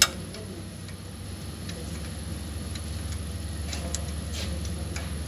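Hand tools working on a brake caliper's fluid-line fitting: one sharp metallic click, then scattered light clicks and taps, over a steady low hum.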